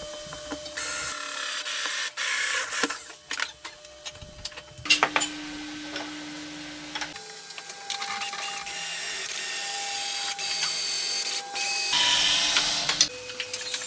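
Small electric power tools running on wood, each with a steady motor whine, in short takes that change pitch abruptly every few seconds, with scattered clicks and scraping.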